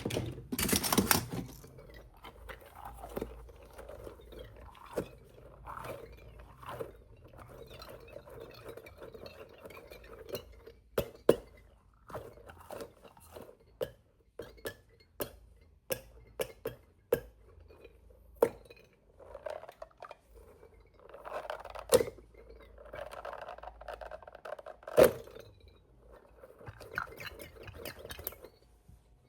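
Small plastic toy pieces being handled: scattered clicks and knocks, a few of them sharp and loud, with soft rustling in between.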